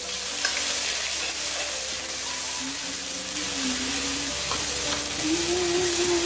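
Chopped onion sizzling steadily in hot oil with cumin seeds in a steel kadai (wok), being stirred as it fries.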